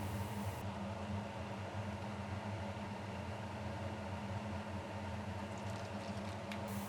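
A steady low mechanical hum, like a small motor or fan running, with a few faint ticks near the end.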